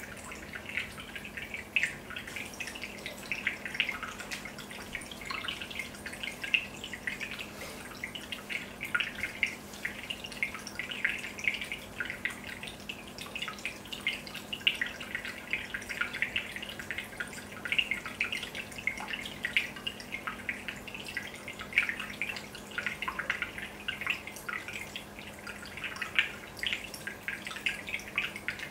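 Aquarium aeration: a steady stream of air bubbles rising and bursting at the water surface, heard as a constant patter of small plinks and drips over a low steady hum.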